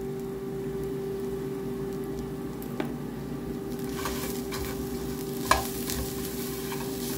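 Sliced onions sizzling in margarine and olive oil in a nonstick frying pan, over a steady low hum. From about four seconds in, a silicone spatula stirs sugar through the onions, scraping across the pan, with a sharp tap a little later.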